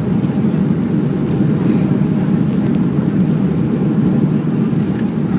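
Boeing 737-400 cabin noise on final approach, heard from a window seat: a steady low rumble of engines and rushing air.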